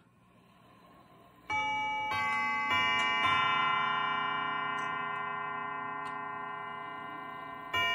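Peerless mantel clock's chimes, freshly restored and set off by the hands being turned: four notes struck in sequence about half a second apart that ring on and slowly die away. Just before the end, the next chime sequence begins.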